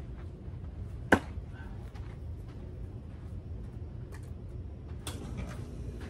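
A thrown fixed-blade knife, a QSP Canary, hitting a wooden target board with one sharp thunk about a second in.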